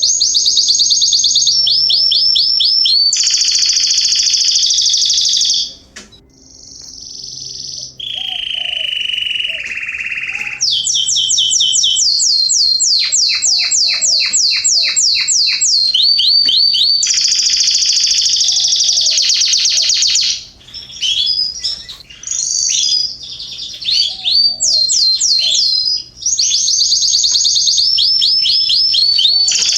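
Canaries singing: long, loud runs of rapid trills and rolls with scattered chirps, one phrase after another, with a brief pause about six seconds in.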